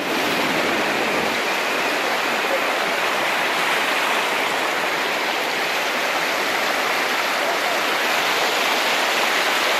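Muddy floodwater rushing along a flooded street in a steady, unbroken rush.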